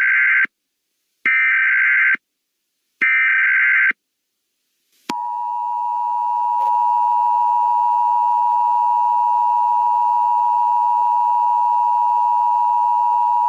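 Emergency Alert System SAME header: three bursts of screeching data tones, each about a second long, with short silences between. About five seconds in comes the EAS two-tone attention signal, a steady, loud dual tone held for about eight seconds, which announces the spoken alert.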